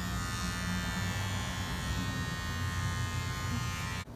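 Electric hair clippers buzzing steadily as they cut a short haircut, cutting off suddenly about four seconds in.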